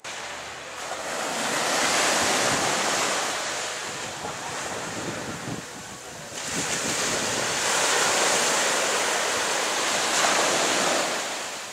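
Small surf breaking and washing up on a sandy beach, swelling twice, with wind on the microphone.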